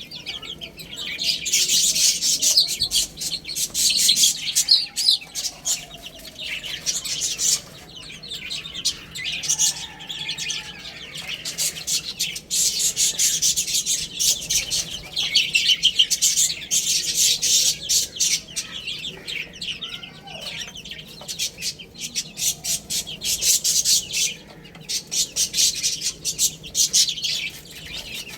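A flock of baby chicks peeping, many high-pitched peeps overlapping in quick succession, rising and falling in clusters. A few lower clucking calls sound beneath them.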